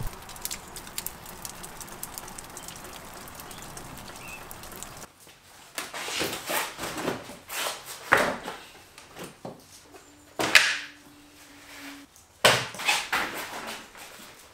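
Steady hiss of rain for about five seconds, then knocks, clicks and rustling as a motocross bike is handled and moved in a garage, with a steady hum for about two seconds partway through.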